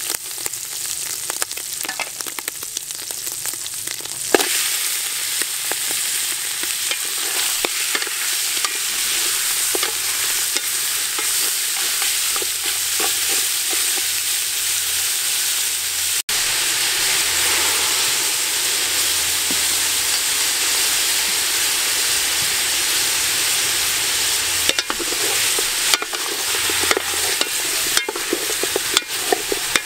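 Garlic and dried shrimp, then chunks of pork, frying in oil in an aluminium pot: a steady sizzle while a wooden spatula stirs, scraping and lightly knocking against the pot. The sizzle gets louder about four seconds in and stays steady.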